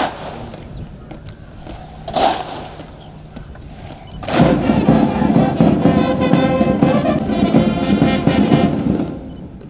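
Two short loud shouts, then a military band's brass plays a salute of held chords for about five seconds before stopping.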